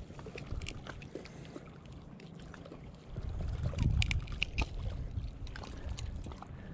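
Wind rumbling on the microphone, louder for a couple of seconds in the middle, with scattered small clicks and rustles from fishing pliers and handling as a hook is taken out of a white bass.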